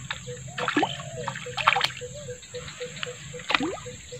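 Fishing bait being jerked across the surface of muddy swamp water: small splashes and dripping, with a few sharp splashes about one, two and three and a half seconds in.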